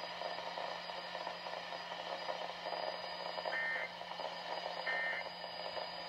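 Midland weather radio's speaker hissing with broadcast static over a low hum, then, from a little past halfway, two short two-tone data bursts about a second and a half apart: the EAS end-of-message code that closes the severe thunderstorm warning broadcast.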